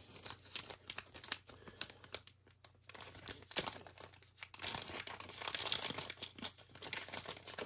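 Package wrapping being crinkled and torn open by hand, a run of small rustles and clicks that grows denser and louder about five seconds in.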